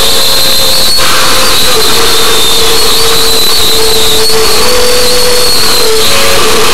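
Loud, harsh, steady hissing noise with two wavering whistle-like tones, one high and one low, held throughout.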